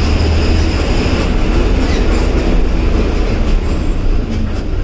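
Diesel engine of a state-transport bus running under way, heard from inside the driver's cabin as a steady low drone with road noise and body rattle.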